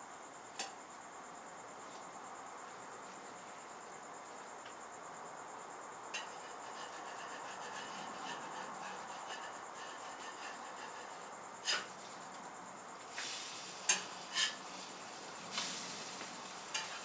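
Metal spatula scraping and clicking on a flat-top griddle while working pancakes. It is faint at first, then gives several sharp scrapes and clicks in the last five seconds.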